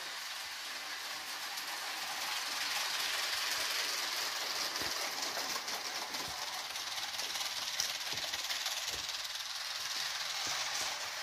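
Motorised brick-built model ET 403 train rolling along plastic toy track: a steady whirring hiss of the motor and wheels that grows louder about two seconds in, with a few scattered clicks.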